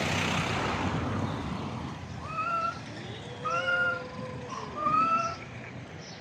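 Stray cats yowling at each other in a face-to-face standoff: several short rising wails about a second apart, over a long, lower drawn-out yowl through the middle.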